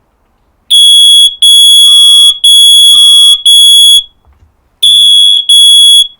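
Mains interlinked smoke alarm sounding: a loud, shrill beep repeated in pulses of about half a second, starting under a second in. The beeping breaks off briefly about two-thirds of the way through, then resumes.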